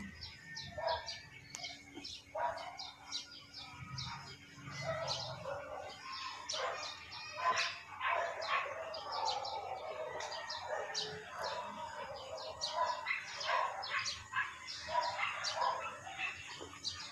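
Small birds chirping: many short, high chirps a second, busy and continuous.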